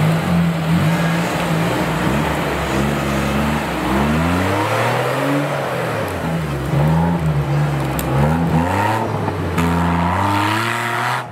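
Off-road 4x4's engine revving hard, its pitch rising and falling again and again as the throttle is worked.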